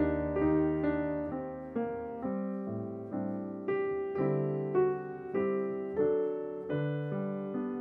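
Gentle solo piano music, notes struck in an unhurried melody with chords ringing out and fading between strikes.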